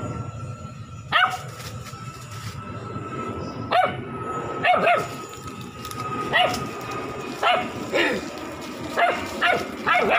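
Black shepherd puppy barking in short, high yips, about ten of them at irregular intervals, some in quick pairs.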